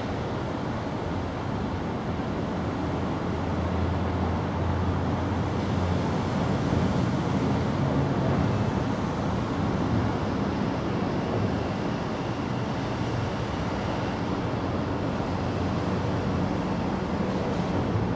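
Steady low rumble and hiss of outdoor background noise, its low hum swelling for a couple of seconds about four seconds in.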